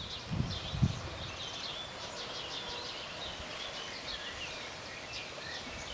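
Wild birds chirping in the background: many short repeated calls throughout, over a steady outdoor hiss, with a few low thumps in the first second.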